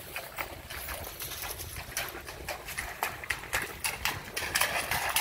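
Tennessee Walking Horse's hooves clopping and splashing through a shallow, stony creek as he walks, irregular hoof strikes growing louder toward the end.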